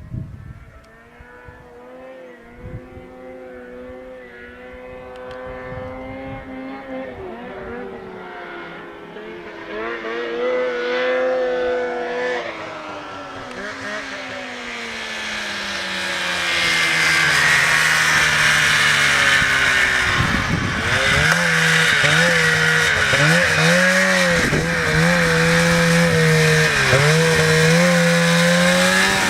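Snowmobile engine running hard, growing steadily louder over the first two-thirds and then staying loud. In the last third its revs dip and climb again several times as the throttle is worked.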